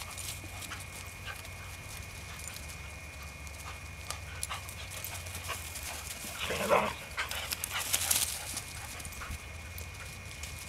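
Poodle panting during play, with one short bark about six and a half seconds in.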